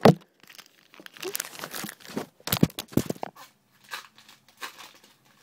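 A sharp knock as the phone is set down on the table, then a foil trading-card pack wrapper crinkling and tearing open for about three seconds, thinning to a few light rustles near the end.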